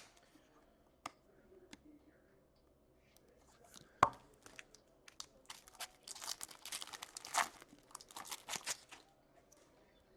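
A foil trading-card pack being torn open, its wrapper crinkling for about three seconds near the end. Before it come a few light clicks and one sharp knock about four seconds in.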